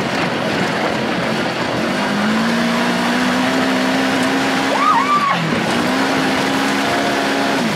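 Side-by-side off-road buggy engine running hard on a dirt track, its steady drone holding, dropping briefly about five seconds in, then returning. A constant rushing noise runs underneath, and a short high rise-and-fall whine comes near the five-second mark.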